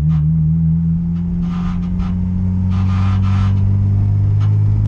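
Turbocharged Honda B18 four-cylinder of an Acura Integra, heard from inside the cabin, running at steady cruising revs, its pitch rising slightly near the end. Two short hisses come about a second and a half and three seconds in.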